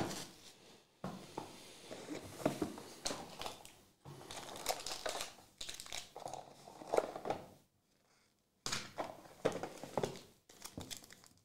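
Foil trading-card pack wrappers crinkling in irregular bursts as they are handled and pulled open by hand, with a brief quiet gap about eight seconds in.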